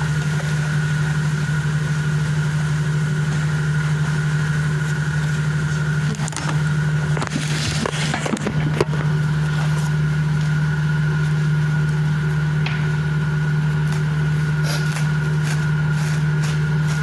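Kitchen exhaust fan running with a steady low hum and a thin steady whine above it. Knocks and rustling from the phone being handled come in about six seconds in and last a few seconds, with a few light clicks near the end.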